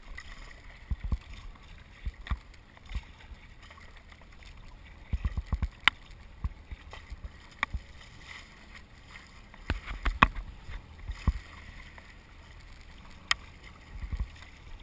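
Kayak being paddled at sea: irregular paddle splashes and sharp knocks every second or two, over a steady wash of water.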